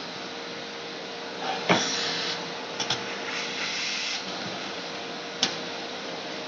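Small hard parts being handled: a few sharp clicks, one of them a quick double click, and two short scraping rustles over a steady hiss.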